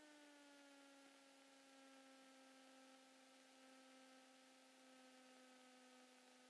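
Near silence: only a faint, steady electrical whine with a few overtones in the aircraft intercom audio, sliding slightly lower in pitch at the start.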